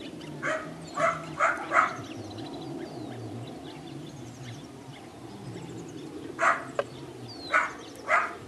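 Belgian Malinois puppy barking in short single barks: a quick run of four in the first two seconds, a pause, then another run near the end.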